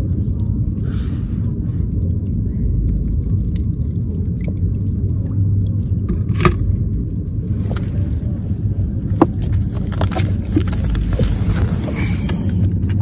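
A steady low rumble, with scattered light clicks and taps of crabs being handled and dropped into a plastic bucket, the sharpest about six and a half seconds in.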